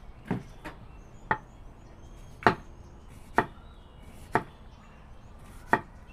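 Kitchen knife slicing a shallot on a wooden cutting board: about seven separate, unevenly spaced knocks of the blade against the board.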